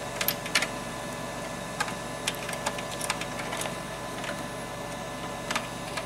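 Light plastic clicks and taps of cables being handled and an Ethernet plug pushed into a computer's port, scattered irregularly over a steady hum.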